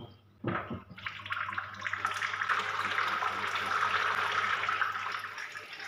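Water streaming down from the air cooler's pads and splashing into its water tank as the newly replaced pump starts circulating. A couple of short knocks come near the start, then the splashing builds from about a second in and settles into a steady patter.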